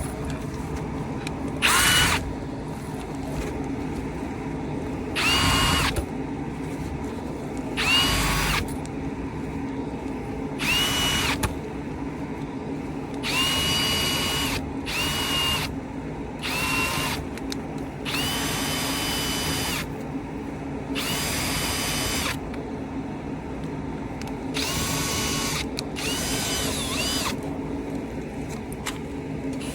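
Power drill spinning a rotary dryer-vent cleaning whip inside the vent duct to loosen lint, run in about eleven short bursts that each wind up to a whine and die away. A steady motor hum runs underneath.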